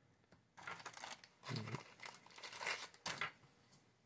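Faint crinkling and rustling of plastic being handled, in irregular short spells that stop shortly before the end.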